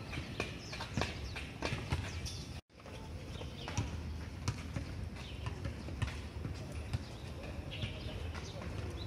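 Quick, irregular footfalls of several people doing running drills on a rubber running track. The sound drops out for a moment at a cut a little over two seconds in.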